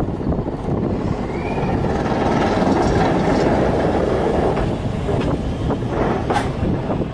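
Electric rack-railway train passing close by, its wheels rumbling and clattering on the track, swelling to its loudest midway and then easing. A short squeal comes about a second in, and a brief high screech near the end.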